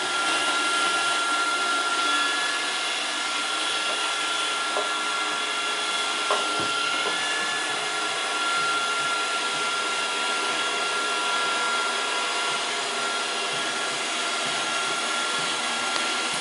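Roomba robot vacuum running: a steady whirring hum with a thin high whine, and a couple of light knocks partway through.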